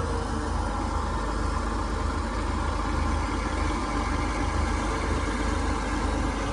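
Oliver tractor engine running steadily at a constant speed, with a steady hiss over it.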